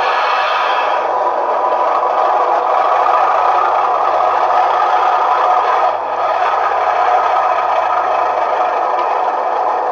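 Hornby TTS Class 37 model locomotive's sound unit playing a steady diesel engine running sound through a replacement aftermarket speaker, loud, with a rattly edge. There is a brief dip about six seconds in.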